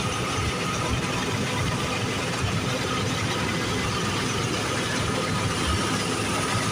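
Combine harvester running steadily while cutting wheat, a continuous engine and machinery drone with a faint high whine that fades out partway through and comes back near the end.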